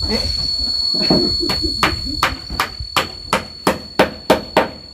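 Hammer driving a nail: about ten sharp strikes, roughly three a second, starting about a second and a half in.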